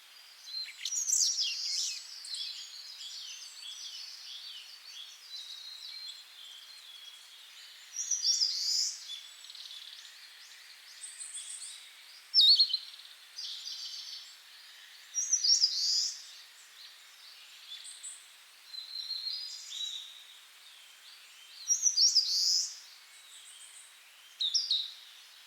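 Wild songbirds singing and chirping, one bird repeating a short song phrase every six or seven seconds, over a faint steady outdoor hiss.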